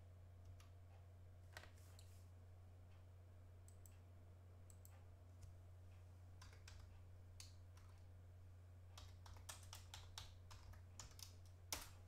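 Faint computer keyboard typing: a quick run of keystrokes near the end, after a few scattered clicks earlier, over a low steady hum.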